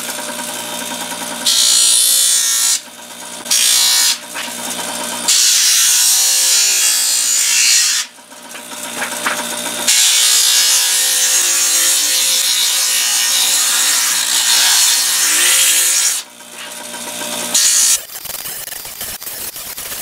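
Bench grinder humming as the edges of a titanium windscreen are pressed against its deburring wheel, giving a loud hissing grind each time the metal meets the wheel: about five passes of varying length. The motor hum stops near the end.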